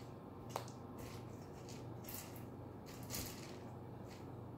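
A cockatoo crunching and nibbling corn in its beak: a scattered string of short, crisp crackles, with a sharp click about half a second in and the loudest crunch just past three seconds in.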